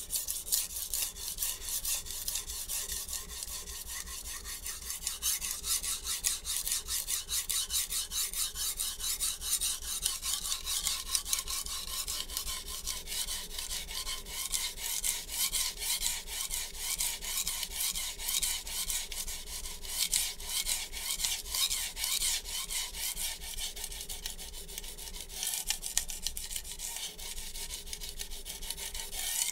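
Hard HAP40-steel chef knife blade stroked quickly back and forth on a wet 120-grit Shapton Glass whetstone: a steady, gritty, rhythmic scraping as the edge is ground to raise a burr.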